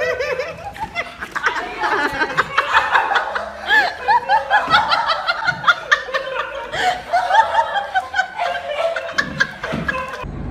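People laughing and giggling in many short, high-pitched bursts.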